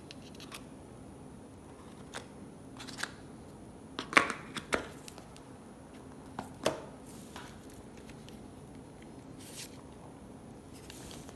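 An iPhone box and its cardboard packaging being handled and opened by hand: scattered taps, clicks and light scrapes, with the loudest handful about four to five seconds in and two short rustling scrapes near the end.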